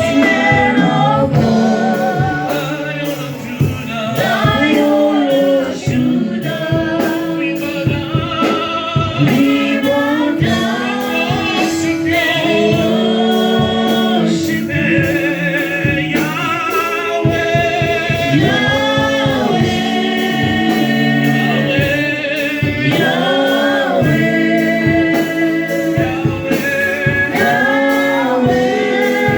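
Gospel worship singing: voices holding long notes with a wavering pitch.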